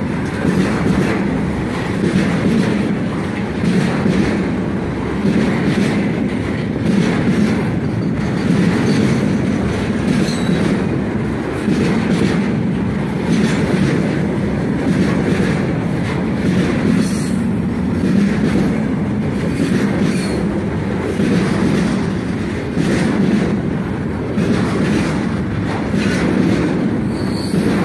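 Container flat wagons of a long freight train rolling past close by: a steady, loud rumble of steel wheels on the rails, with repeated clatter as the wheelsets cross the rail joints.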